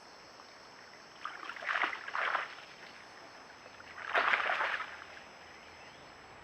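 Water splashing and sloshing in a shallow creek, in two bursts: a longer one about a second in and a shorter, louder one about four seconds in. Under it runs a faint steady high whine.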